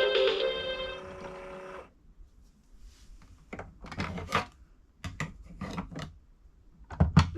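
VTech My 1st Record Player toy's electronic techno tune plays and fades out about two seconds in. Then come several clusters of sharp plastic clicks and knocks from the toy being handled, and a new tune with a rising swoop begins at the very end.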